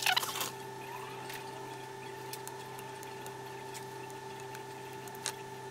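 Brush scrubbing a corroded phone logic board, a short scratchy burst that stops about half a second in. After it, only a steady faint electrical hum with a few light ticks.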